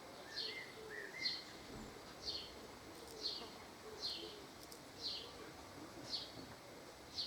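A bird calling over and over, a short high chirp that falls in pitch, repeated about once a second.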